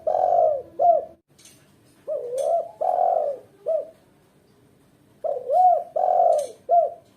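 Female spotted dove (tekukur) cooing: the end of one phrase, then two more full phrases about three seconds apart, each a run of about four arched coo notes.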